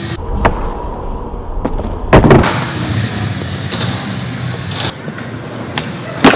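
Skateboard rolling on flat ground with sharp wooden clacks of the tail popping and the board landing. The loudest cluster of hits comes about two seconds in, with another sharp clack near the end.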